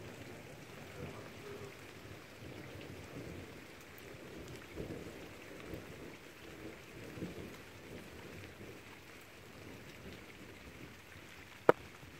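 Steady rain-like hiss with irregular low rumbling, and a single sharp click near the end.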